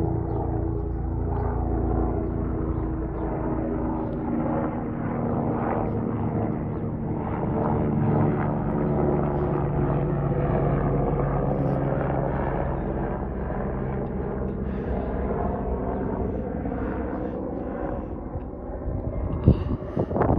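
Rescue helicopter flying, a steady drone with tones that shift slowly in pitch, and a few sharp knocks near the end.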